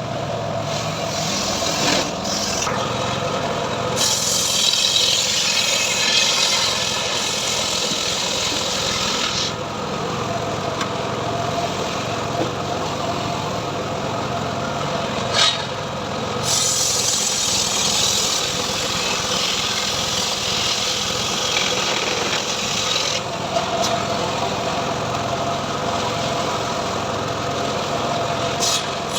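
Engine-driven home-built sawmill running steadily as its blade saws through teak, the cutting hiss growing stronger in two long stretches. A sharp click about halfway through.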